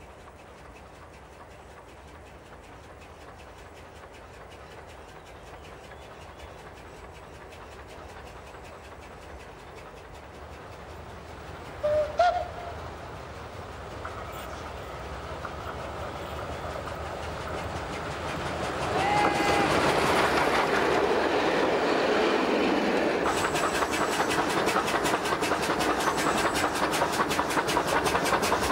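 EBT steam locomotive approaching and passing, growing louder as it nears. Two short whistle blasts about twelve seconds in are the loudest sound, and another brief whistle comes near twenty seconds. In the last few seconds there is a fast, even chuffing beat from the exhaust and moving running gear.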